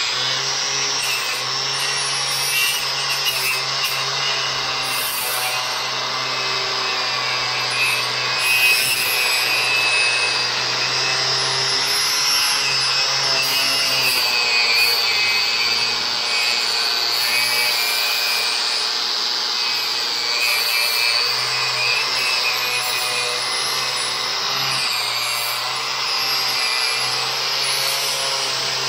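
Corded angle grinder running continuously against the steel hinge area of a car door, grinding away the old hinge barrels and burrs. The disc's whine rises and dips slightly as it is pressed into the metal and eased off.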